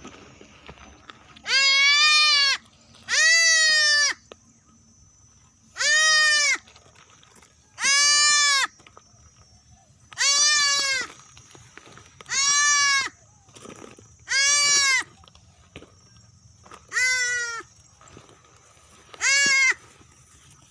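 A young goat kid bleating, nine loud, high calls about two seconds apart: the cries of a kid left behind by its mother.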